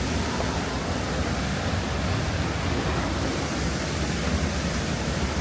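Waterfall running in heavy flow after rain, a steady rushing of falling water.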